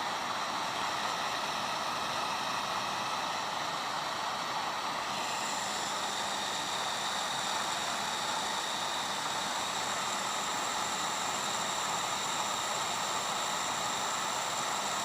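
Heat gun running steadily, its fan blowing with a thin high whine over the rush of air; the whine changes pitch slightly about five seconds in.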